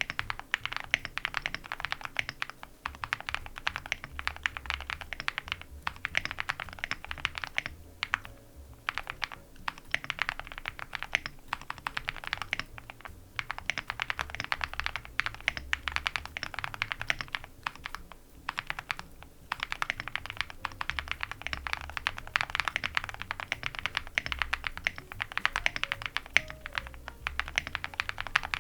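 Continuous fast typing on a mechanical keyboard with Gateron Moon Landing linear switches, dye-sub PBT keycaps, an aluminium plate and full foam. The keystrokes come as a dense run of clicks, with brief pauses about a third and about two thirds of the way through.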